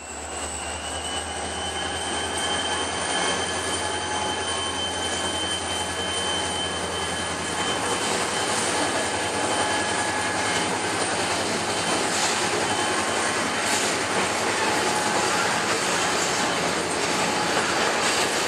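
Freight train passing: the low rumble of CSX GP40-2 diesel locomotives (EMD 16-cylinder two-stroke engines) for the first several seconds, then the rolling noise of boxcars. Steady high-pitched wheel squeal from the curve runs throughout, with a few clicks of wheels over rail joints.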